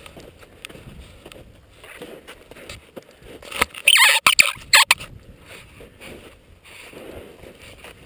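Skis sliding and scraping over slushy snow, with a steady rushing noise from the moving helmet camera. About three and a half seconds in comes a loud burst of rubbing and knocking, lasting about a second and a half, as something brushes right against the camera housing.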